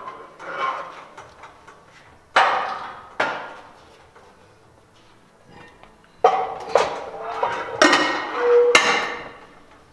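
Weight plates being slid onto a barbell's sleeves, clanking metal on metal about six times in two clusters, a couple of seconds in and again from about six seconds, with a short ring after one of the last clanks.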